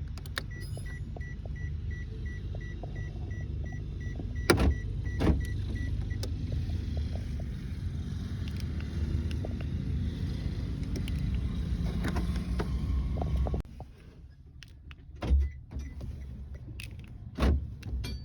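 Daihatsu car engine idling steadily, with a rapid repeating warning chime beeping for the first few seconds; the engine is switched off near the end, leaving a few clicks and knocks.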